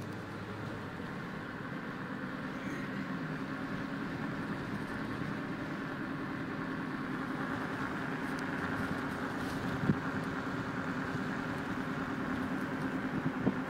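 Car driving on a road: steady engine and tyre noise that slowly grows louder, with a single short knock about ten seconds in.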